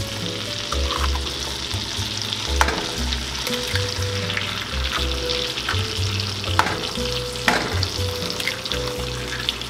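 Butter and eggs sizzling in a frying pan on full heat, with a few sharp cracks a few seconds apart as eggs are broken on the pan and dropped in.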